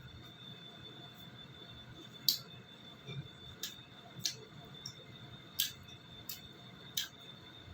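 Eating sounds: a series of short, sharp clicks, roughly one a second from about two seconds in, over a faint steady high whine.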